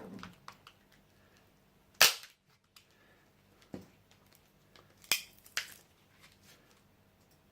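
Sharp cracks and snaps of a laptop battery pack's plastic casing being pried apart: one loud crack about two seconds in, then three quieter snaps.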